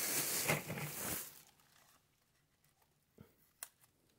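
Thin plastic shopping bag crinkling and rustling as hands rummage through it. The crinkling stops a little over a second in, and two small clicks follow near the end.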